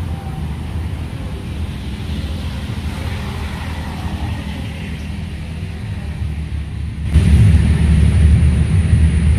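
Road traffic: a steady low rumble of passing vehicles that gets louder about seven seconds in.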